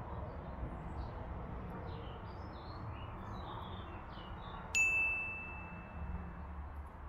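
A single bright chime sounds about two-thirds of the way in and rings on one steady high tone, fading over about two seconds. Before it, faint bird chirps sound over a low steady background hum.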